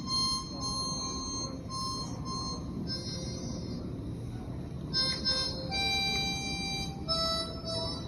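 Harmonica playing a slow melody of held notes.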